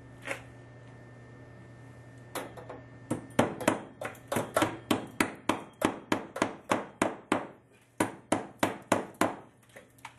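Hammer driving a copper pipe hook into a wooden floor joist to secure a copper pipe. One tap, then from a couple of seconds in a long run of quick, sharp blows, about three a second, that stops near the end.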